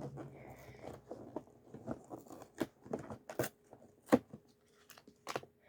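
Small plastic Lego pieces and their packaging being handled: irregular sharp clicks with light rustling between them, the loudest click about four seconds in.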